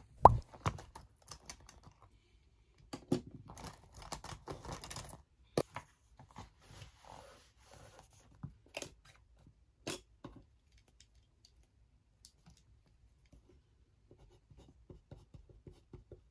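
Paper handling at a desk: a sharp knock right at the start, then textbook pages rustling and sliding, a few clicks, and faint pen scratching on paper near the end.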